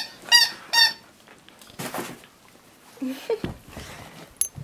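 A dog chewing a squeaky toy: three quick high-pitched squeaks in the first second, then quieter scuffling and a short low sound.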